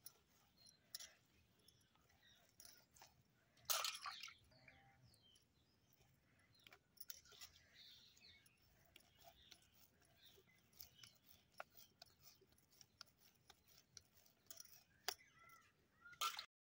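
Near silence with faint scattered ticks and soft pats, and two brief louder rustles about four seconds in and near the end: hands pressing and shaping soft ragi mudde (finger millet balls) on a granite slab.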